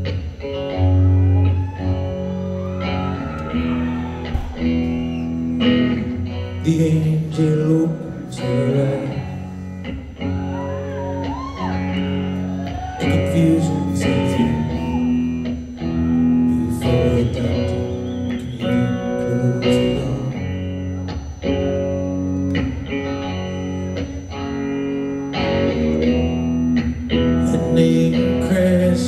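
Live rock band playing a slow song, with guitar and bass under a male lead vocal, recorded from the audience in a concert hall.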